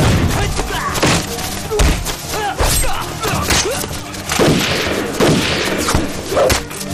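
Dubbed fight-scene sound effects: heavy punch-and-kick thuds mixed with gunshots, a sharp hit about once a second.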